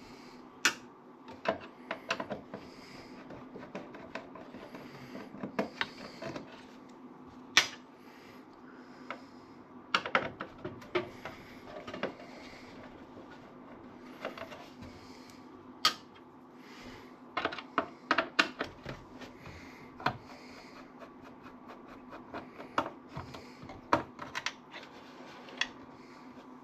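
Irregular sharp clicks and light plastic knocks from hands working inside a desktop computer, pulling small connectors off the motherboard, with a steady faint hum underneath.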